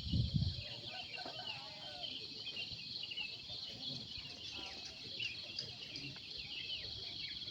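Morning outdoor ambience: many birds chirping and calling at once over a steady high insect drone. A few dull low thumps come in the first half-second.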